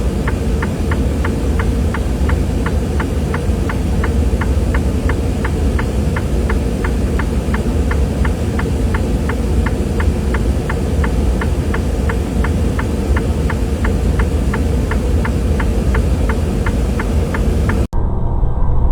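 Steady low engine and road rumble of a moving vehicle heard from inside its cab, with an even light ticking about three times a second. It cuts off abruptly about a second before the end.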